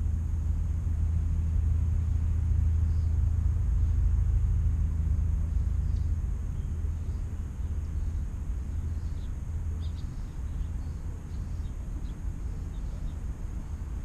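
Low rumble of a distant motor vehicle engine, loudest in the first half and easing off after about seven seconds, with a few faint, short high bird chirps.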